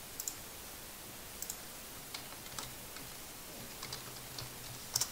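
A few quiet, spaced-out computer keyboard keystrokes and mouse clicks, the last two close together near the end.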